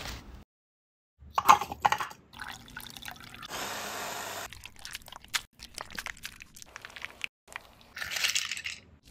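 A run of short food-prep sounds: a few loud sharp knocks and crunches about a second and a half in, about a second of an electric food chopper whirring near the middle, then ice cubes rattling as they are tipped into a hollowed cantaloupe near the end.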